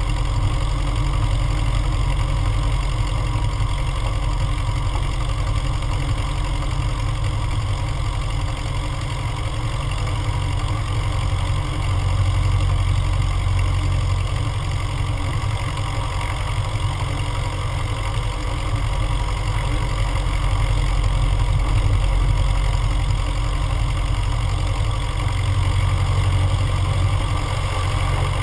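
Cessna 150M's four-cylinder air-cooled Continental O-200 engine and propeller running at low taxi power, a steady low drone that swells slightly now and then.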